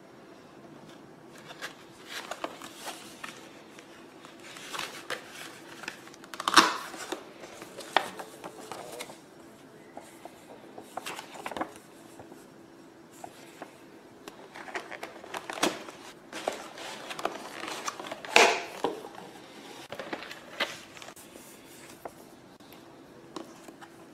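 Paper and packaging being handled by hand: irregular rustles, crinkles and taps of leaflets, cardboard and a clear plastic tray, with two louder crackles about six and a half and eighteen seconds in.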